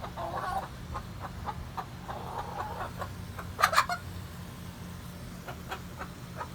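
Chickens clucking in short repeated notes, with one louder squawk about three and a half seconds in, over a steady low hum.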